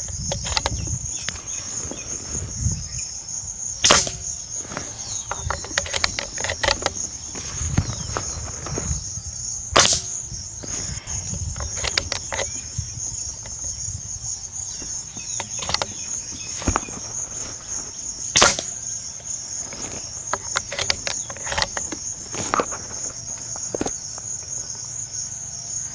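Diana Stormrider Gen3 .177 PCP air rifle firing pellets, about three sharp shots roughly 4, 10 and 18 seconds in, with fainter clicks between. Crickets chirr steadily in the background.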